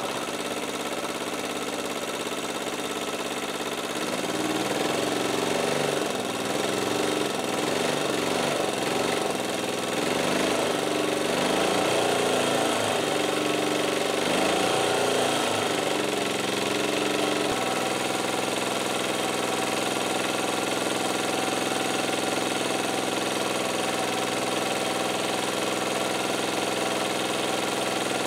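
Portable generator's engine running on wood gas from a homemade gasifier. Its speed wavers up and down for about thirteen seconds, then settles to a steady run.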